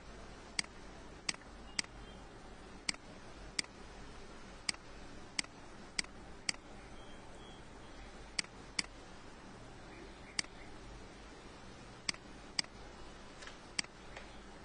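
Computer mouse button clicking: single sharp clicks at uneven intervals, about fifteen in all, over a faint steady low hum.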